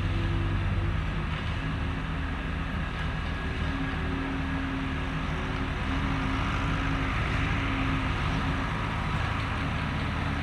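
Diesel engine of a New Holland 80-horsepower skid steer loader running steadily under load as its grader blade pushes crushed rock.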